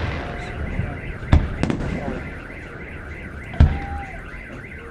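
Fireworks bursting: a sharp bang a little over a second in, another soon after, and the loudest one past three and a half seconds. Between the bangs an electronic alarm siren warbles over and over.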